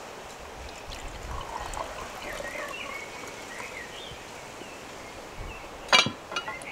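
A drink poured from a glass jug into a drinking glass, a steady trickle, with a single sharp knock near the end.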